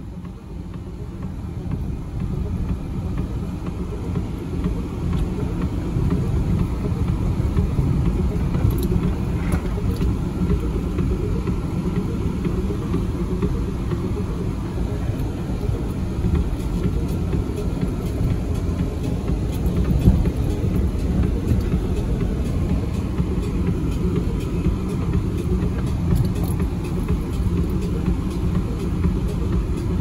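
A car driving: a steady low rumble of engine and road noise that grows louder over the first few seconds and then holds even.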